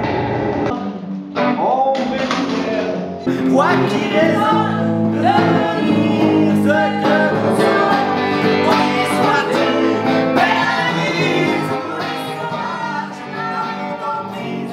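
A voice singing over a plucked acoustic guitar, the song coming in about a second in.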